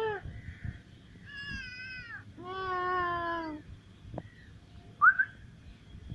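Stray cats meowing to be fed: two drawn-out meows, the second lasting about a second, then a short, sharp rising squeak about five seconds in.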